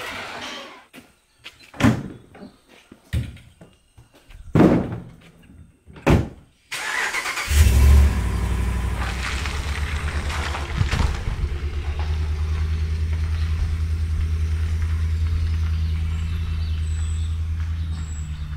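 A few separate thumps in the first six seconds, then a pickup truck's engine starts about seven seconds in and runs with a steady low hum.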